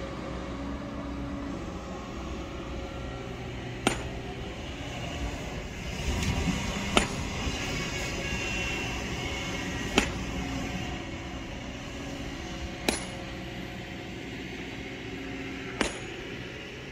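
Steady hum of a heavy machine's engine running, with a sharp metallic clink about every three seconds.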